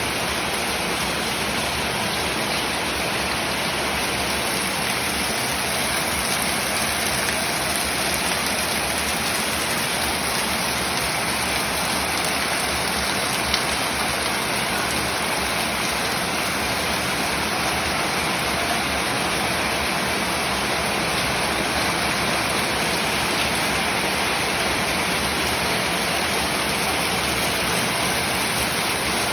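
Heavy rain falling in a steady, even hiss, with one brief tick about halfway through.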